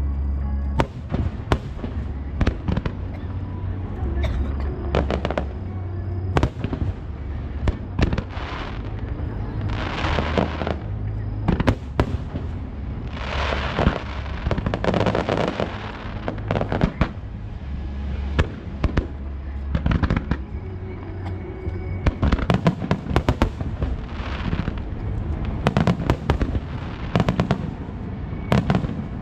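Aerial fireworks shells bursting one after another with sharp bangs, some followed by crackling showers. The bursts come thickest in a rapid volley over the last several seconds.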